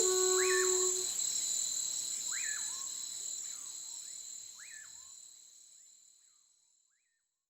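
Night forest ambience: a steady high insect trilling with a repeated rising-and-falling chirping call, fading out to silence about six seconds in. A low held flute note ends about a second in.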